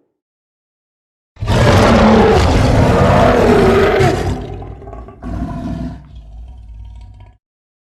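A cartoon monster roar. It starts suddenly about a second and a half in with a wavering pitch, stays loud for about three seconds, fades, and comes back quieter before cutting off.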